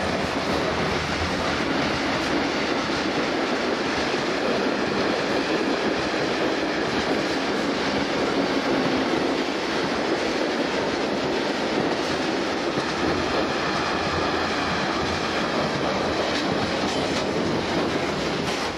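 Freight train passing close by at speed: tank wagons and open wagons roll past with a steady, loud rumble and rattle of wheels on the rails.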